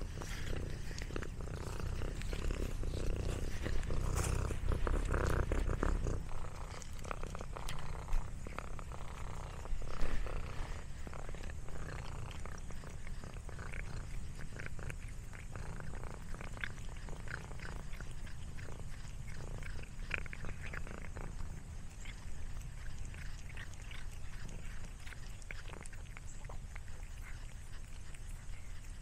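Domestic cat purring close to the microphone, louder for the first six seconds, with scattered small clicks and rustles and one sharp knock about ten seconds in.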